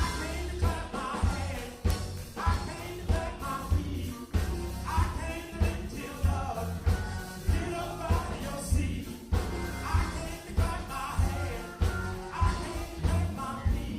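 Music with singing over a steady beat and heavy bass.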